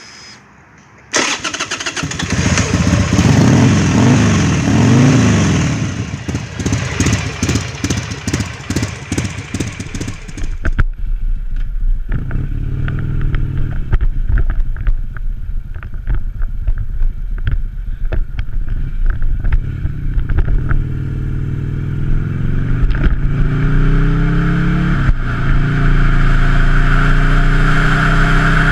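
Buell Lightning XB9's air-cooled V-twin, breathing through a Jardine muffler with a quiet core, fires up about a second in, is revved, then settles into an uneven idle. From about 11 s in the bike is under way, the engine pulling up through the gears with its pitch climbing and dropping at each shift, and wind noise rising near the end.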